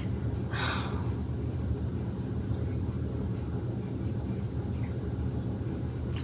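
Steady low room hum, with a brief soft rustle about half a second in.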